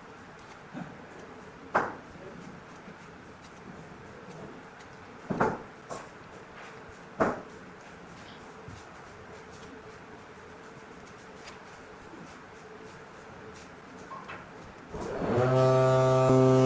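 A few sharp knocks, three of them louder, over a faint steady hum. Music with a plucked guitar comes in near the end.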